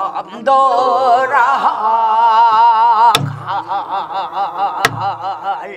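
Korean Namdo folk song sung with a wide, heavy vibrato. A buk barrel drum is struck twice, about three seconds in and again near five seconds, each stroke a sharp crack with a low thud.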